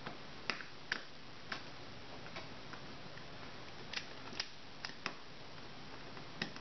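Small screwdriver unscrewing a screw from the plastic underside of a battery-powered toy train engine, to take off its body shell: a handful of light, irregular clicks and ticks.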